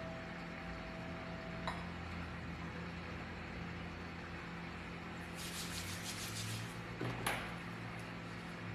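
Small brass singing bowl ringing a steady tone that is cut off with a click about two seconds in. Later come quieter handling sounds: a short rustling scrape and a couple of light clinks.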